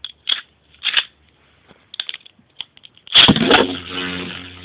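Small clicks and scrapes as a Beyblade-style spinning top, the Hasbro Hyperblades Variares D:D in spike mode, is set in its ripcord launcher, then a loud ripcord launch about three seconds in as the top drops into a clear plastic bowl. The top then spins with a steady hum.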